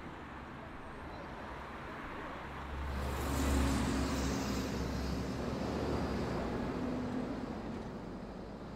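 City road traffic noise, with a vehicle passing close by about three seconds in: a louder swell of engine rumble and tyre hiss that fades away over the next few seconds.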